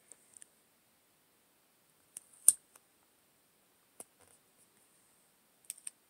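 A handful of short, sharp taps and clicks of fingers placing and pressing a paper sticker onto a spiral-bound planner page, the loudest about two and a half seconds in.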